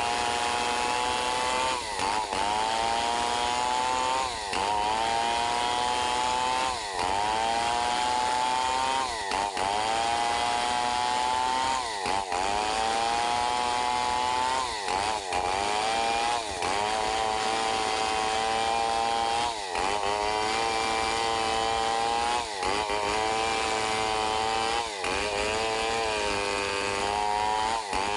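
Stihl 070 two-stroke chainsaw at full throttle ripping a log lengthwise. The engine pitch drops and climbs back about every two to three seconds as the chain bites and frees in the cut.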